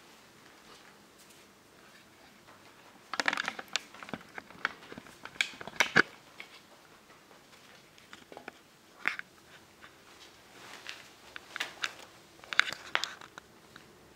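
Plastic sheeting crinkling and crackling in several short bursts as a kitten rolls and kicks on it, with quiet stretches between.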